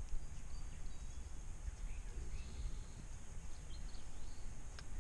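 Outdoor farmyard ambience: a steady low rumble with a few faint, short bird chirps, about two and three-and-a-half seconds in.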